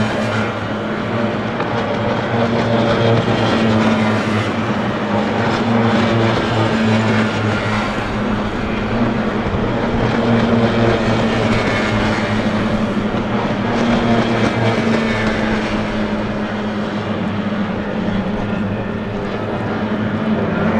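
Racing hydroplanes' two-stroke outboard engines running in a steady, continuous drone whose pitch wavers slightly, with water and wind noise underneath.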